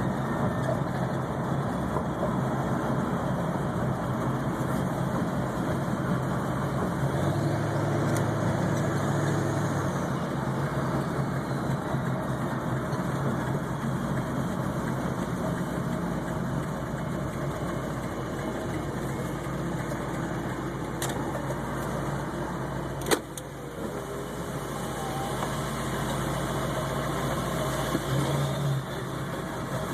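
Ford 7.3 Powerstroke V8 turbodiesel idling, its note changing for a few seconds about a quarter of the way in and swelling briefly near the end. A single sharp click comes about three-quarters through. The owner reports a high, rough, surging idle, which he thinks may be a bad ICP sensor or fuel pressure regulator.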